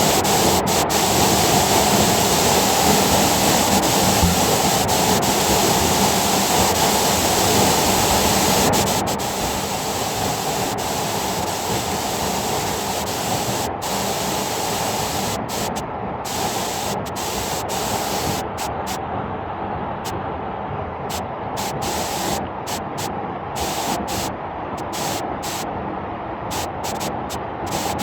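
Waterfall rushing: a steady, loud roar of falling water that drops somewhat in level about nine seconds in.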